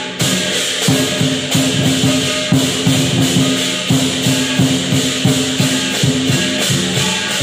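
Chinese lion dance percussion: a large lion drum struck in a repeated beat every half second to a second, under continuous clashing cymbals.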